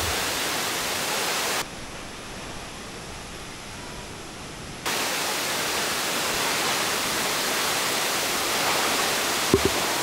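Steady rush of Coban Rondo's tall plunge waterfall falling onto rocks: an even hiss with no pitch. It drops to a quieter level from about one and a half seconds in to about five seconds in, then comes back at full strength.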